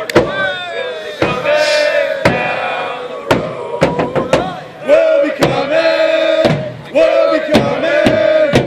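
A crowd of soccer supporters chanting in unison as they march, with a drum struck about once a second.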